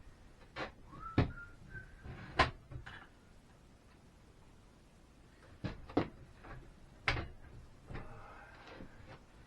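Irregular knocks and clunks of a sliding miter saw and its metal stand being handled and set in place, the loudest about two and a half seconds in, with a short squeak a little after one second.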